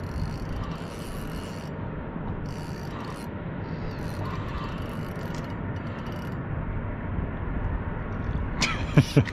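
Fishing reel being cranked in repeated short bursts of high, ratcheting whirr while a hooked fish, taken for a zander, is reeled in, over a steady low rumble.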